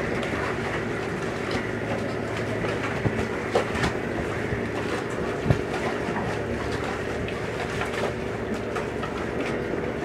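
River boat's engine running steadily, with a few sharp knocks about three to five and a half seconds in.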